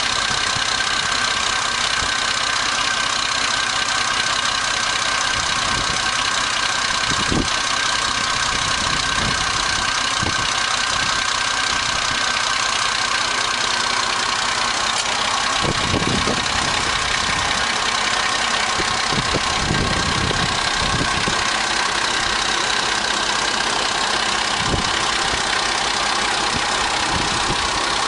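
An engine or motor running steadily, with a few low thumps now and then.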